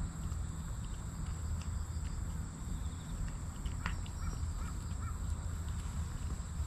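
A cat eating wet food from a stainless steel tray, with faint chewing clicks, over a steady low rumble and a constant high insect drone. A crow caws three times, quickly, about four seconds in.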